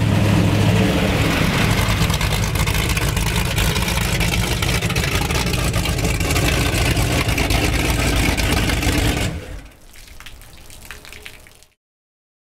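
Mercury Racing 700 SCI supercharged V8 marine engine on a 36-foot powerboat, just started, running steadily at idle with a deep rumble through its exhaust tips. The engine sound drops away about nine seconds in.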